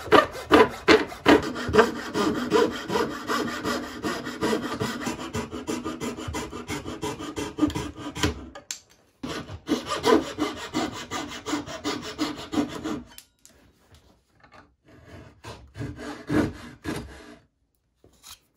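Coping saw cutting a cope in white crown molding, following the profile: quick back-and-forth rasping strokes, about three a second, with a short pause near the middle. The sawing stops about two-thirds of the way through, and a few faint scrapes and knocks follow.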